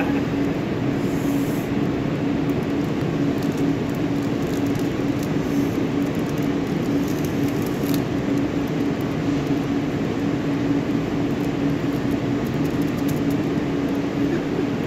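Steady mechanical hum of building machinery, with one constant low tone held throughout. There are a few faint crinkles of a small foil chip packet being handled.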